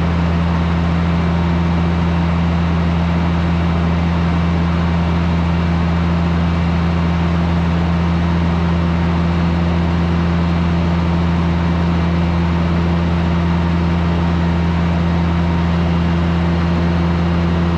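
Oliver 880 gas tractor's six-cylinder engine running steadily, with an even, unchanging pitch.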